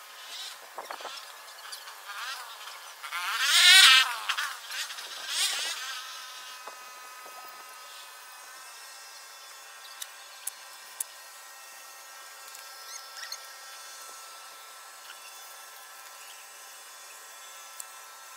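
A flying insect buzzing loudly for about a second and a half, around three to four seconds in, its pitch wavering. It sits over a faint steady background hum, with a few faint ticks later on.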